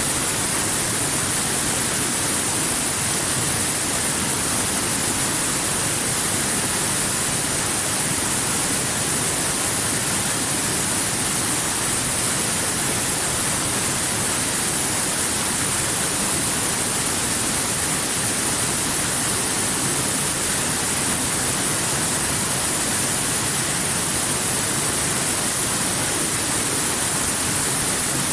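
Waterfall rushing steadily: an even, unbroken hiss of falling water with no separate splashes or other sounds.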